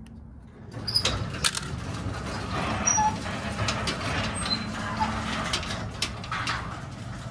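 Garage door and its electric opener running, starting about a second in: a steady motor hum with rattling and clicking as the door travels on its tracks. A few short bird chirps sound over it.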